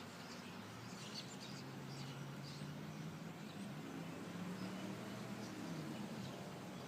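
Many birds giving short, high chirps scattered throughout, over a low droning hum that sets in about a second in and slides down in pitch near the end.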